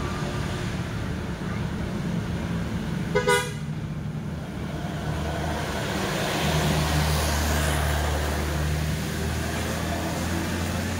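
Road traffic with one short horn toot about three seconds in, the loudest sound. A heavy vehicle's engine then rumbles past, loudest around seven to eight seconds in.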